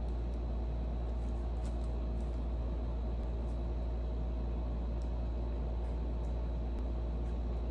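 A steady low machine hum with a faint even hiss, unchanging throughout, with a few faint ticks over it.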